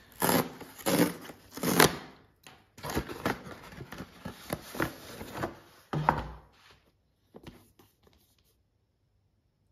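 Cardboard mailer being ripped open along its tear strip, in several scratchy tearing pulls with cardboard rustling between them. A dull knock about six seconds in, then the sound fades out.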